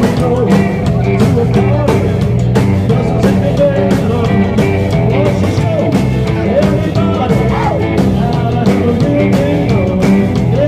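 Rockabilly band playing live: electric guitars over a drum kit with a steady beat.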